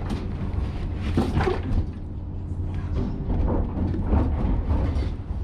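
Steady low drone of a fishing boat's engine heard inside the wheelhouse, with irregular knocks, creaks and scrapes from loose fittings and furniture.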